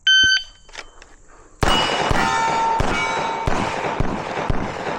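A shot timer's start beep, then about a second and a half later a Gen 5 Glock 34 9mm pistol fires a fast string of about five shots, with steel targets ringing from the hits.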